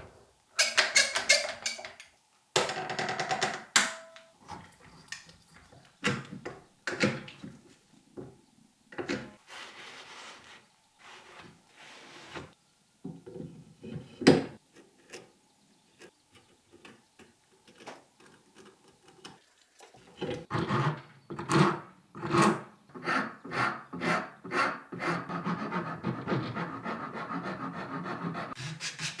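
Hand rasp scraping on wood, shaping a wooden handle. A few separate strokes come first, then from about two-thirds of the way in a steady run of strokes, about two a second.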